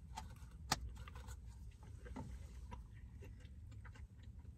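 Quiet eating sounds: faint clicks of plastic spoons against plastic cups and soft mouth sounds, with one sharper click a little under a second in, over a low steady rumble inside a car.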